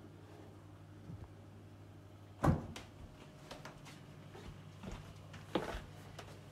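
Two sharp knocks about three seconds apart, with lighter clicks and taps between them, over a low steady hum.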